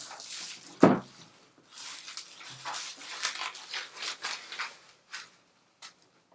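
Clear plastic shrink-wrap crinkling and rustling as it is pulled off a cardboard kit box, with one loud thump about a second in as the box knocks against the table. A few light taps of hands on the box near the end.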